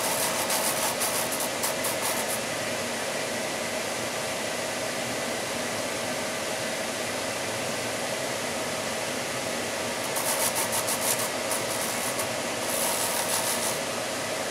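Drum sander running steadily, with scratchy rasping when a small intarsia wood piece is pressed against the narrow sanding drum to shape it: once at the start for about two seconds, again about ten seconds in, and once more near the end.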